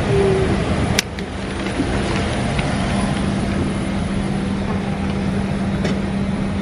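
Steady cabin air rush and low hum inside a parked Boeing 737-800 during boarding, with a sharp click about a second in.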